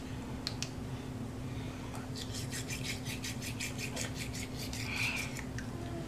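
Child's manual toothbrush scrubbing teeth in quick back-and-forth strokes, about six a second, starting about two seconds in and stopping shortly before the end. A couple of light clicks come about half a second in, over a steady low hum.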